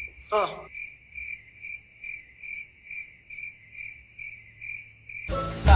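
Cricket chirping sound effect, a steady chirp about three times a second, the stock cue for an awkward silence. It cuts off near the end as loud music and a voice come in.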